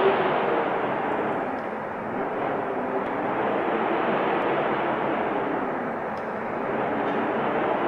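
Wind blowing as a steady rushing noise that swells and eases in gusts, easing off about two seconds in and again around six seconds in.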